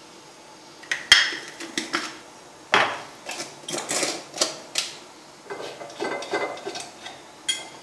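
Kitchen utensils and seasoning containers clinking and clattering: an irregular run of sharp taps and knocks, busiest in the middle, ending on one sharp click.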